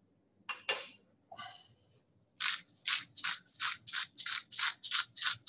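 Hand-twisted salt grinder over a bowl: two clicks and a short rasp, then from about two seconds in a steady run of gritty grinding strokes, about four a second.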